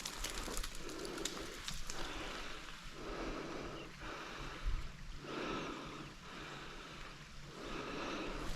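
A person breathing hard, in and out, with a breath roughly every second.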